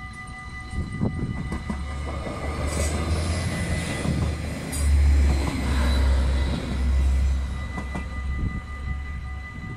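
Arriva GTW diesel multiple unit passing over a level crossing at close range, a heavy rumble with several loud surges as its cars go by, the loudest about halfway through. The crossing's warning bell rings steadily underneath.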